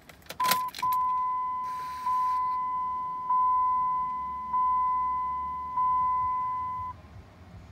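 Ram 3500 dashboard warning chime at key-on, with the engine not yet cranked: a steady single-pitched ding repeating about six times, roughly one and a quarter seconds apart, stopping near the end. A few sharp clicks come just before the chimes start.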